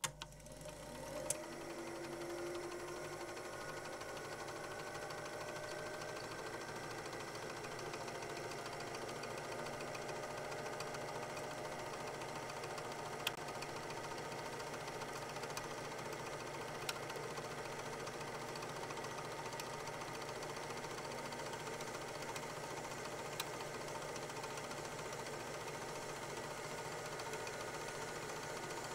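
8 mm film projector running steadily with a fast mechanical clatter. Its motor rises in pitch over the first few seconds as it comes up to speed. A few faint clicks come through now and then.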